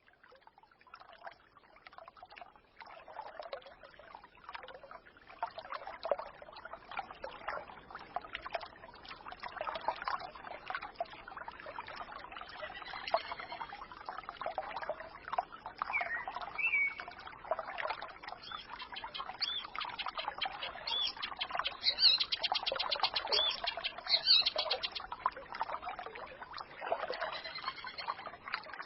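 Small forest stream babbling and gurgling, fading in over the first few seconds, with songbirds chirping and trilling high above it, busiest in the second half.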